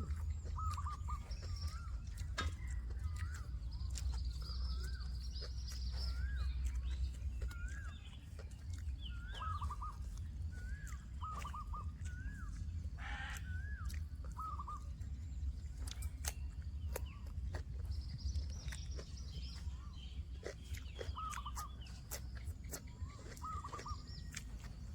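Birds chirping over and over, short up-and-down notes about once a second with higher warbling, over a steady low rumble and scattered clicks.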